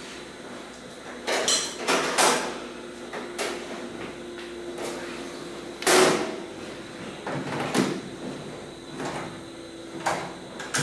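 Clacks and knocks of an X-ray imaging plate being handled: the holder on the upright chest stand is opened, and the plate is pulled out and set into the tray of an EcoRay ecoCR computed-radiography reader. There are about a dozen separate knocks, the loudest about six seconds in, over a faint steady hum.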